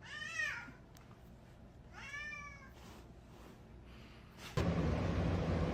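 A cat meows twice, two short meows about two seconds apart, each rising then falling in pitch. A steady background hiss with a low hum comes in near the end.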